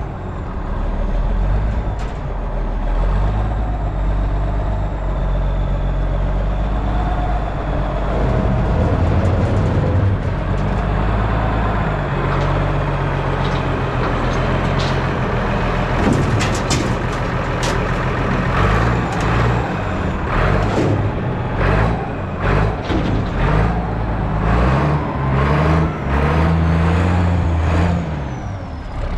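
Heavy vehicle engine running, its revs rising and falling, with a series of sharp metal clanks and knocks through the second half.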